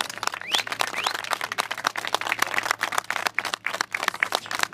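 A group of people applauding, many hand claps overlapping densely and irregularly.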